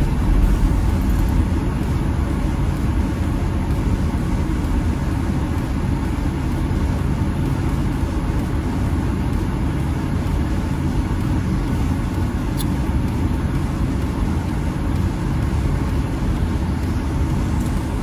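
Steady low rumble of a car heard from inside its cabin, with engine and road noise and no sharp events.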